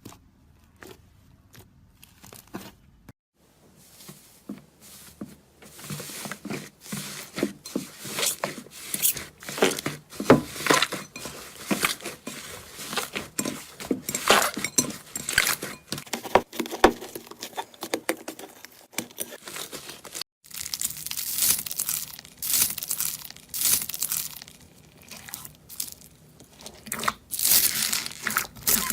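Hands squeezing, pressing and stretching crunchy slime, making dense crackles and pops. It is quiet for the first few seconds, and there is a short break about two-thirds through.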